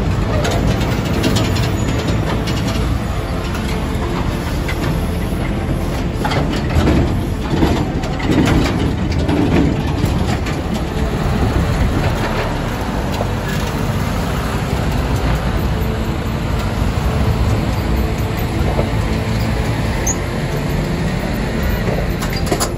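Diesel semi trucks running as they pull double bottom-dump trailers through, with some clanks and rattles between about six and ten seconds in.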